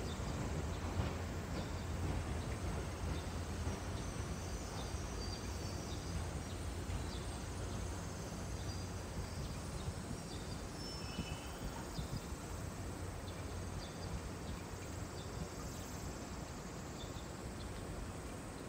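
Low steady rumble of distant electric trains creeping along depot sidings, easing off slowly, with scattered short high chirps over it.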